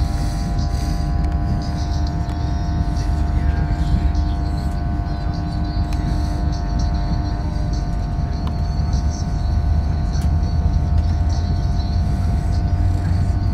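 Running noise heard inside a moving passenger train: a low rumble of wheels on the track with a steady whine from the train's running gear.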